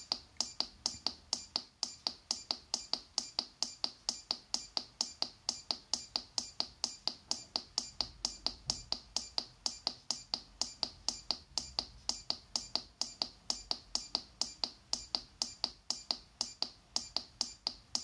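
Bus destination keypad controller ticking evenly and quickly, about four short sharp ticks a second, as a held scroll key auto-repeats through the destination list.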